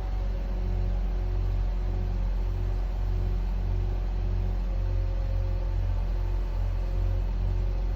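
Nissan Serena C26 engine idling with a steady whine over the low engine hum. The whine comes from the alternator, which the dealer diagnosed as the source of the noise at an early stage.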